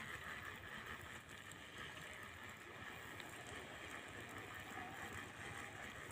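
Faint steady outdoor noise: wind on the microphone, a low rumble with a soft hiss over it.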